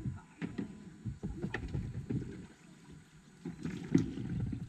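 Small boat on a lake: water sloshing with irregular low bumps and knocks, and a louder knock near the end.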